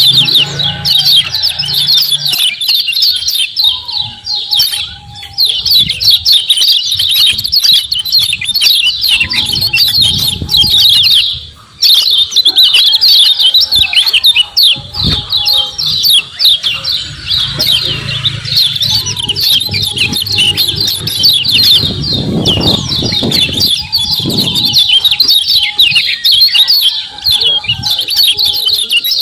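Kecial kuning, a white-eye, giving its fast chattering "ciak ciak" calls: a dense, unbroken stream of quick high chirps, with a brief pause about twelve seconds in.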